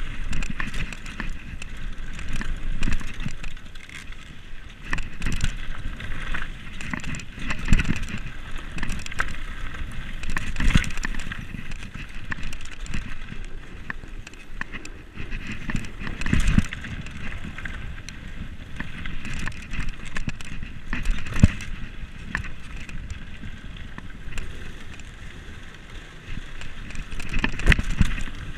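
Commencal Meta SX2 full-suspension mountain bike ridden fast down a dirt downhill track, heard from a camera on the rider: continuous rattle and clatter of the bike and tyres over the rough ground, with sharp knocks from bumps and landings several times along the way.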